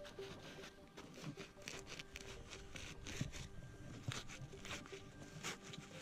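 Dirt crunching and scraping as gloved hands pull a rusted metal object out of loose soil, in short irregular strokes, loudest about three and four seconds in.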